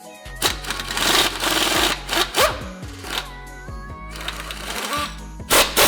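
A power tool, likely an impact wrench or air ratchet, running in several short bursts as the steering rack's subframe bolts are undone, over background music with a steady beat.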